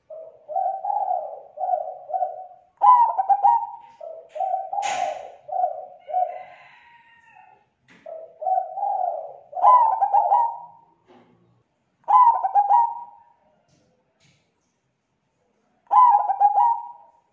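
Zebra dove (perkutut) cooing in repeated phrases of quick coo notes, the phrases separated by short pauses and the higher notes the loudest. A single brief sharp noise comes about five seconds in.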